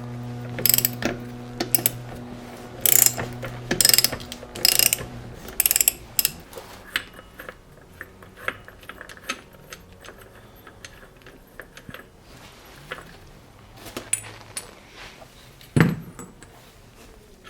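Metal clicks, clinks and ratcheting of hand tools and parts as a vintage David Bradley chainsaw is taken apart, over a steady hum that stops about five seconds in. Scattered lighter ticks follow, and one louder knock comes near the end.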